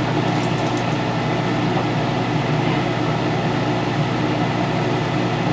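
A steady mechanical hum with a constant low drone, unchanging in level.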